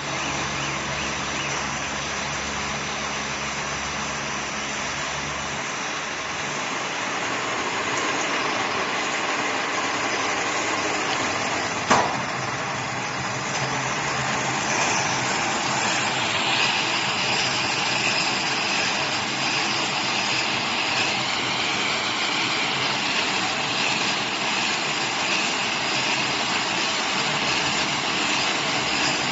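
Silage round baling and wrapping machine running with a steady mechanical din, with a single sharp knock about twelve seconds in.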